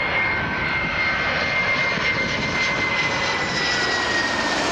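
Boeing 737-500 on final approach with its CFM56-3 turbofans running, passing low overhead: a steady rushing jet noise with a high whine that falls slightly in pitch near the end as the aircraft goes by.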